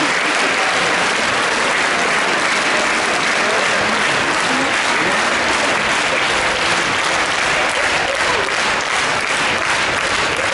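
Opera house audience applauding steadily, a dense wash of clapping; single claps stand out more sharply in the second half.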